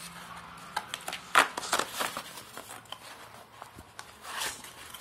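Cardboard packaging scraping and rustling as a phone box is worked out of a snug cardboard shipping carton: a run of irregular scrapes and taps, the loudest about a second and a half in.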